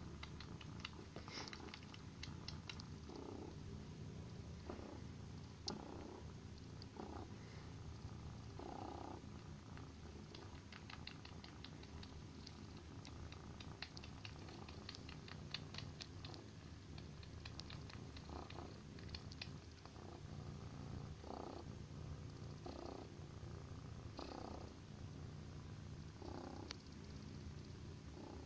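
Kitten purring steadily while comfort-sucking and kneading a fluffy bath rug, with runs of soft quick clicks from the sucking.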